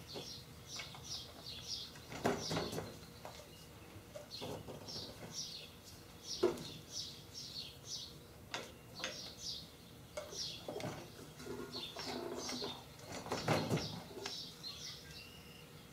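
Birds chirping, many short quick calls throughout, with a few sharp knocks and clunks from handling the milling machine's head as it is worked loose from the column, the loudest about six seconds in and a cluster near the end.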